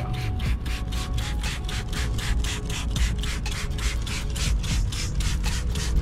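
Rapid back-and-forth hand scrubbing on an aluminum semi-truck wheel wet with acid aluminum brightener, about five rubbing strokes a second.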